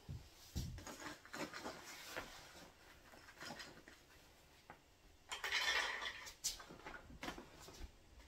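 Kitchen handling sounds: a plastic zipper bag of walnuts rustling, and walnuts being scooped into a measuring cup, with small clinks and knocks of dishes and utensils. A louder rustle of about a second comes just past the middle.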